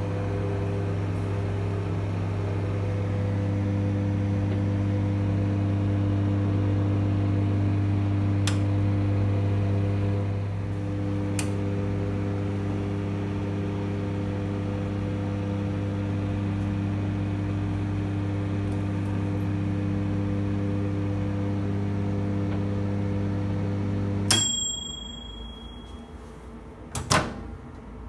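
Electrolux EMG23K38GB 23-litre microwave oven running with a steady hum. The hum cuts off about 24 seconds in with a single short ding as the timer runs out. A couple of seconds later there is a sharp click as the door is opened.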